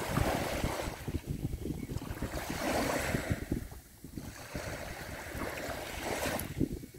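Small waves washing onto the beach, each wash swelling and fading about every two to three seconds, over steady wind buffeting the microphone.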